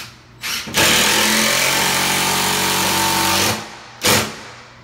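DeWalt cordless impact driver sinking a 4-inch screw into a wall stud. A short burst, then about three seconds of continuous hammering over a steady motor whine, then one more short burst about a second later.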